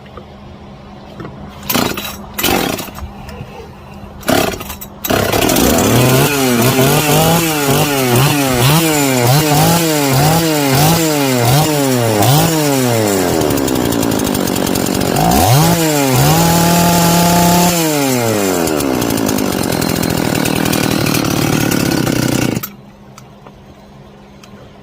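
Husqvarna 266 two-stroke chainsaw, rebuilt with a 268XP cylinder, starting after a few short pulls, then revved up and down about eight times, then revved and held high before settling, and shut off abruptly near the end.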